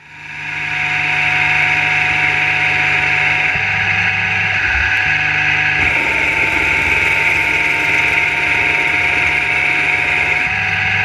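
Maktek Tytan 500 lathe, converted to CNC, turning EN AW 2007 aluminium with coolant spraying. A steady machine hum with a strong hiss fades in over the first second. The low hum changes pitch a few times, about three and a half seconds in, again about six seconds in, and near the end.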